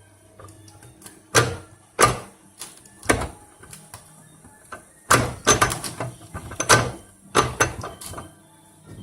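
An irregular series of sharp metal clunks and clacks, with a quick flurry in the second half, from working the gear shift of a homemade lathe's feed gearbox while trying to put it into first gear.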